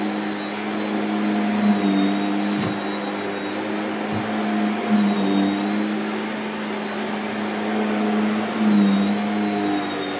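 Shark Powered Lift Away NV681UKT bagless vacuum running in lift-away mode, its motorised floor head pushed back and forth over carpet: a steady motor drone with a thin high whine, its pitch wavering slightly with the strokes.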